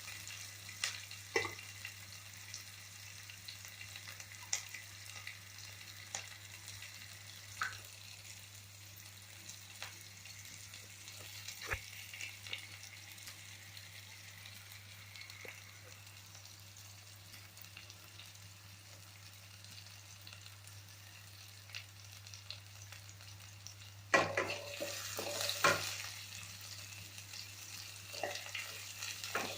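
Oil sizzling steadily in a cooking pan, with scattered clicks and scrapes of a spoon stirring. Near the end there is a louder spell of sizzling and clatter.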